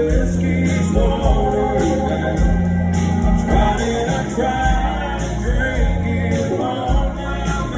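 Live country band playing, with a steady drum beat under sustained, gliding melody lines.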